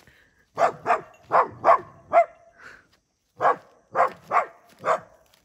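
Small dog barking repeatedly at a cow to chase it off: a run of about five sharp barks, a short pause, then about four more.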